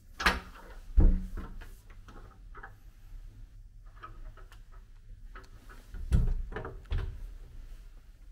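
Wooden wardrobe doors being opened: sharp clicks and knocks of the latch and doors, a loud pair within the first second and another pair around six to seven seconds in, with faint handling ticks between.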